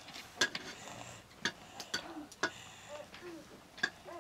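A stirring spoon knocking against a cooking pot: sharp, irregular clicks, about six in four seconds.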